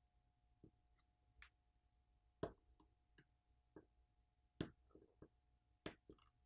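Scattered small clicks and taps of precision hand tools (tweezers and a pry tool) against a smartphone's internals and board connectors. The two sharpest clicks, about two and a half and four and a half seconds in, are connectors being popped off.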